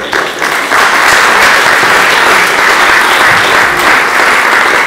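Live audience applauding at the end of a stage scene, the clapping swelling to full strength about a second in and holding steady.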